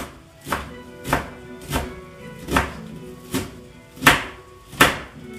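Kitchen knife chopping spinach on a chopping board: a steady run of about eight knocks, a little under two a second, the two near the end the loudest.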